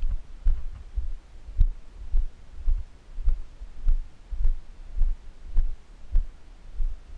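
Steady low thuds, a little under two a second, with faint clicks: footsteps of someone walking, jolting a body-worn camera.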